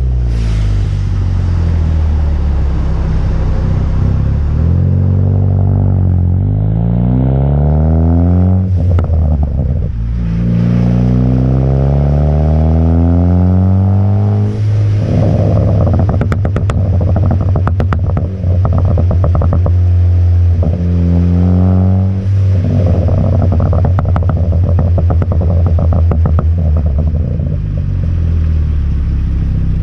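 Car exhaust with an AWE Track exhaust and stock downpipe under acceleration, the engine note rising in pitch over several seconds twice and dropping sharply between pulls. In the middle, sharp crackles and pops come from the tune's programmed crackles on the overrun.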